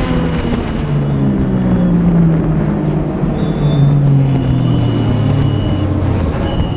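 Legend car's Yamaha motorcycle four-cylinder engine heard from onboard at race pace, its pitch stepping up about a second in and then slowly falling as the car comes off the throttle.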